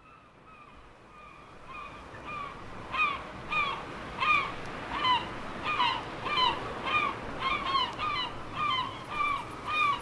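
A bird calling over and over, a short hooked note repeated about twice a second. The calls fade in over the first few seconds, then stay steady.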